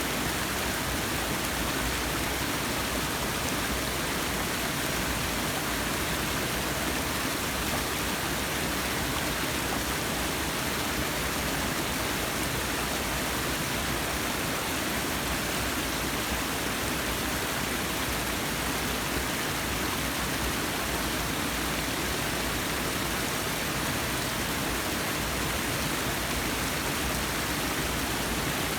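Forest waterfall: a steady, even rush of falling water with no breaks or changes.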